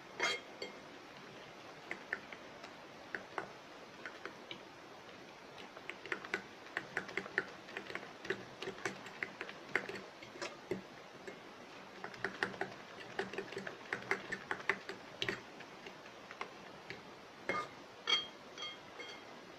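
A fork beating eggs in a bowl: fast runs of light clicks and taps as the tines strike the bowl.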